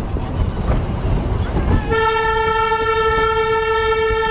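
Narrow-gauge train running with a low rumble, then about two seconds in its horn starts one long, steady blast.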